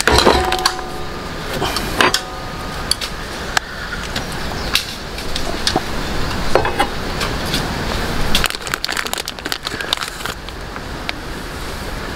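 Plastic instant-yakisoba packet crinkling and tearing as it is opened, with scattered clicks and knocks of cookware being handled.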